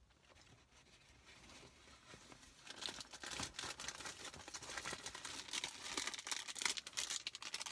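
Bag packaging crinkling and rustling as it is handled and rummaged through. Faint at first, denser and louder crackling from about three seconds in.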